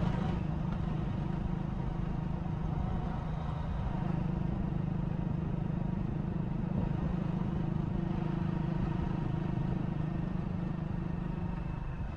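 Vehicle engine running steadily at an even speed, a constant low drone with no revving.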